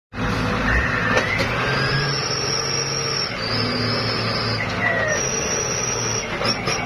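Heavy diesel engines running steadily: a tracked excavator and a stuck dump truck. A high thin whine comes and goes over the engine noise.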